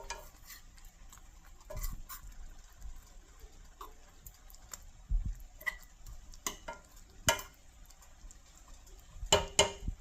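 Scattered clinks and knocks of kitchen utensils against pots and dishes, a few seconds apart, with the loudest two close together near the end.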